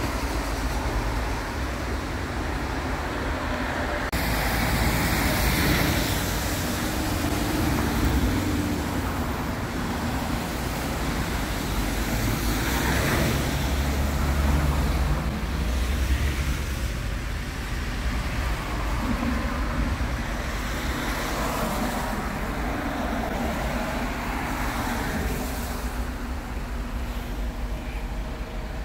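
Outdoor road traffic noise: a steady low rumble of traffic with a few vehicles swelling past now and then.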